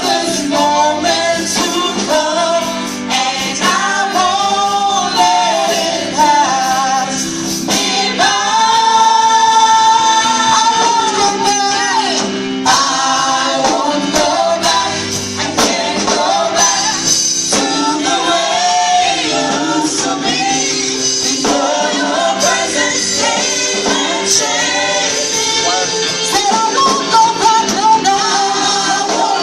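Gospel choir singing with female and male voices over band accompaniment and a tambourine, with a long held note about a third of the way in.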